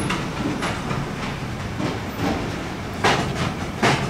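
Cars being driven onto a car-carrier train's wagons: a steady low rumble with scattered knocks, two louder ones about three and four seconds in.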